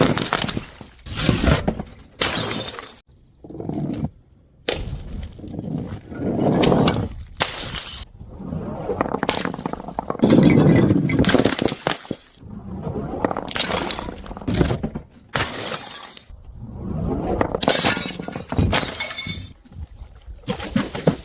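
Glass bottles breaking and shattering, a series of separate sharp breaks one after another.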